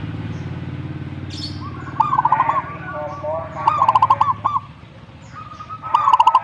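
Zebra dove (perkutut) cooing: three bursts of quick, rolling coos about two seconds apart. A steady low hum runs beneath for the first four seconds or so, and short high chirps sound now and then.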